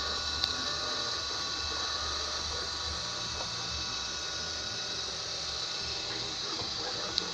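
Seebest C565 robot vacuum cleaner running: a steady hiss from its suction fan with a few steady motor tones in it, and two short sharp clicks, one about half a second in and one near the end.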